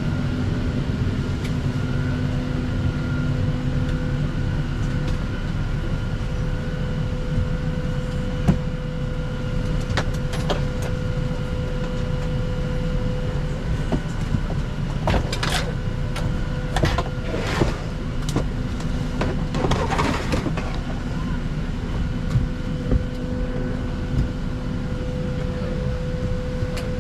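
Steady hum of a parked airliner's cabin ventilation, with a constant whine, low background chatter and a few short knocks and rustles in the middle as passengers settle in.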